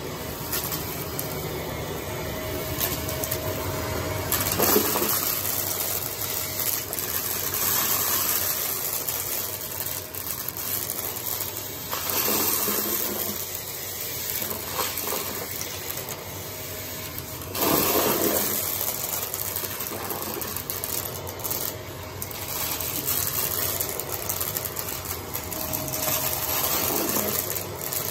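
Vacuum cleaner running over carpet, its motor steady while a chunky debris mix rattles up through it. It swells louder a few times as it is pushed through the debris.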